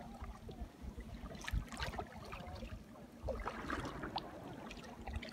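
Kayak paddle strokes dipping and splashing in lake water, in uneven bursts, loudest about a second and a half in and again between three and four seconds in, over a low rumble.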